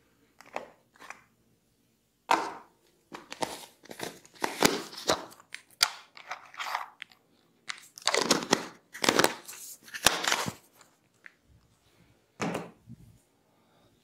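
Crunchy, crackling handling noises from a plastic jar of cotton buds being opened and a bud taken out, in irregular bursts with short gaps, the loudest cluster about two thirds of the way in.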